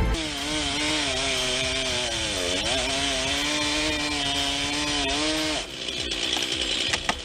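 Chainsaw running at high revs while cutting wood, its pitch dipping briefly about two and a half seconds in and then recovering, before it cuts off abruptly about five and a half seconds in.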